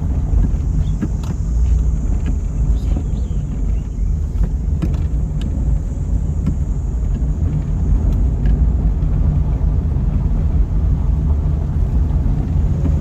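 A car on the move: steady low engine and road rumble, with a few faint clicks and knocks.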